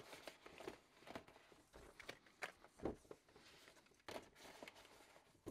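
Faint rustling of a paper shopping bag and irregular light taps of small cardboard boxes being taken out and set down on a table.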